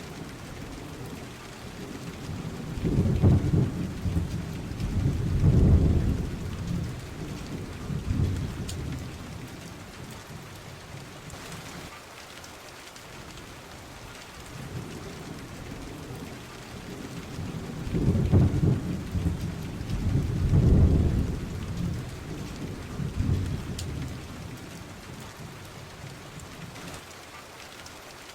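Steady rain with rolls of thunder, in two sets of three low rumbles about fifteen seconds apart, matching closely enough to suggest a looped rain-and-thunder background track.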